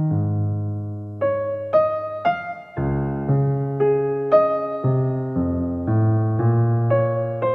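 Background music: a slow, gentle keyboard piece in a piano sound, with single notes and chords struck about every half second over held bass notes.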